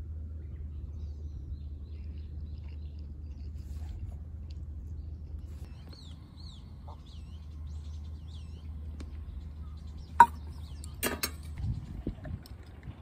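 Outdoor background with a steady low hum and small birds chirping a few times. About ten seconds in comes one sharp click, followed by a couple of quieter knocks as a drink is taken.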